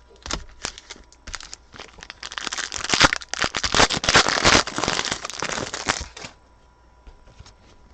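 Trading card pack wrappers being torn open and crinkled by hand: scattered crackles, then a loud run of crinkling from about two seconds in until it stops after about six seconds.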